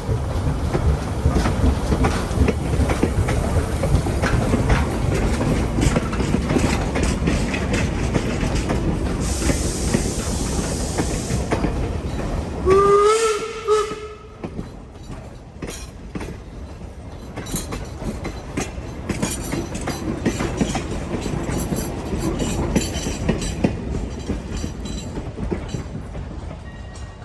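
A 4-4-0 steam locomotive and its train rolling past, with a heavy rumble and the clatter of wheels over the rails. About nine seconds in there is a burst of steam hiss. Near the middle comes a short steam whistle blast, after which the rumble falls away and lighter clicking carries on.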